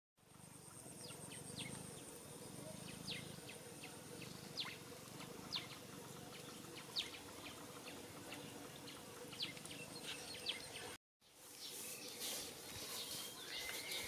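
Faint outdoor ambience of scattered short, sharp bird chirps, with a high-pitched insect trill during the first few seconds. The sound drops out for a moment about eleven seconds in, then picks up again with more rustling background noise.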